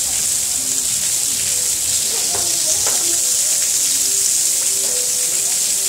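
Heavy downpour of rain, a dense steady hiss with no let-up.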